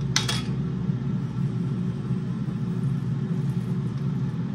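Steady low hum of an air fryer running, with one brief clink from a glass jar just after the start.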